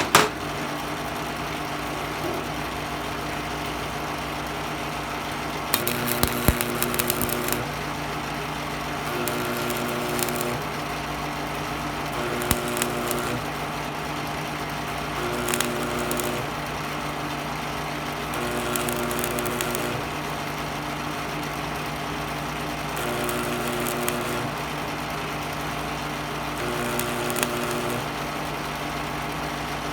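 Old Miller Thunderbolt 250 AC stick welder striking a series of short arcs on thin metal. Eight crackling, buzzing bursts of about a second each, roughly every three seconds, over the welder's steady transformer hum.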